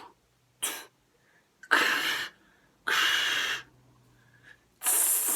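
A man breathing heavily close to the microphone: one short breath, then three long, loud, rushing breaths about a second apart.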